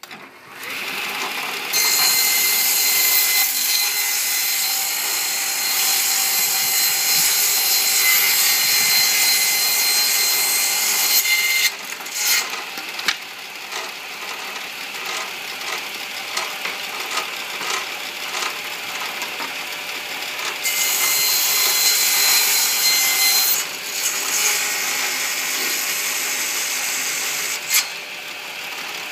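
Table saw running, with a louder, high-pitched whine while the blade cuts through wood: a long cut from about two seconds in lasting some ten seconds, and a shorter one a little after twenty seconds. Between the cuts the saw keeps running at a lower level, with knocks from boards being handled.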